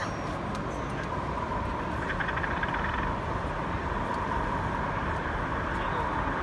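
Model diesel multiple unit running along the layout track: a steady hum with a thin high tone that comes in about a second in.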